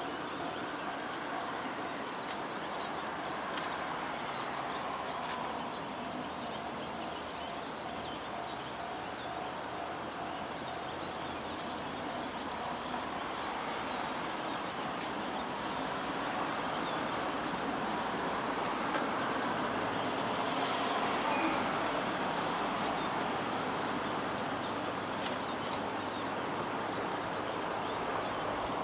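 Shinano Railway 115-series electric train running, a steady noise of wheels and motors that swells a little about two-thirds of the way through.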